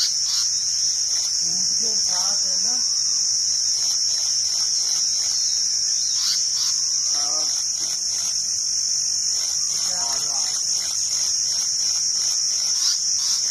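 Insects droning steadily in one continuous, high-pitched buzz. Faint, short, wavering calls rise over it a few times.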